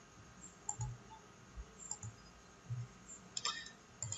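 A few faint computer mouse clicks, the sharpest about three and a half seconds in, with a couple of soft low thumps over quiet room tone.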